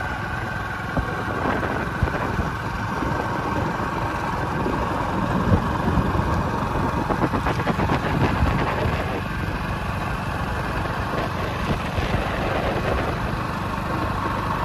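Small Honda motorcycle engine running steadily at road speed, mixed with wind rushing over the microphone.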